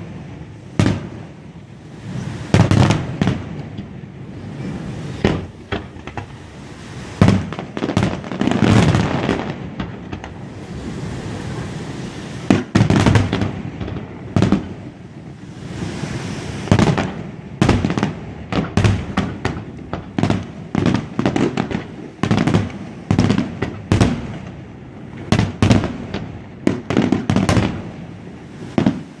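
Fireworks display going off: dozens of sharp bangs of bursting shells at irregular spacing, some in quick runs, with crackle and rumble filling the gaps between them.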